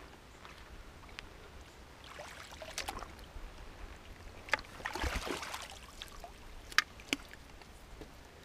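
Hooked common carp splashing at the water's surface while it is guided into a landing net, in two bouts of sloshing about two and five seconds in, with a few sharp clicks.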